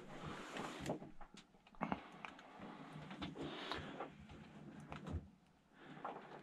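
Faint scuffs and a handful of small knocks, the sounds of people shifting on loose rock and handling a camera in a rock tunnel.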